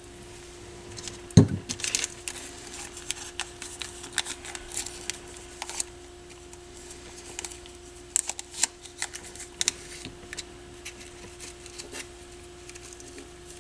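Light rustling and small clicks of thin wire being handled and coiled by hand, with one louder knock about a second and a half in. A faint steady hum runs underneath.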